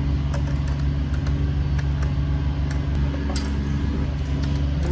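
A steady low mechanical hum, with a few light metallic clicks as a wrench and a small nut are worked off the alternator's terminal studs.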